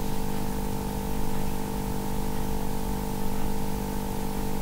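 A steady hum of several held tones over an even hiss, unchanging throughout, with no distinct stirring or bubbling sounds.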